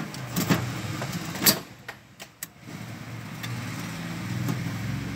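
Screwdriver working the screws of a wiring terminal block, giving a few sharp clicks and knocks of metal on the screws and block. A low steady hum runs through the second half.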